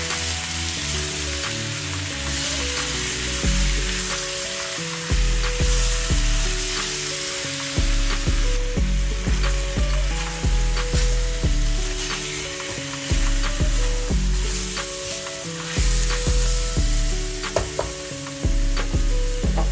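Pork pieces sizzling and frying in a stainless steel wok, with the silicone spatula scraping and tapping as it stirs. Background music with a pulsing bass line plays throughout.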